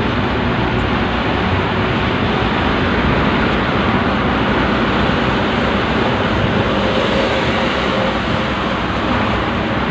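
Steady engine and road noise inside the cab of a moving truck, an even loud rush with a low rumble underneath.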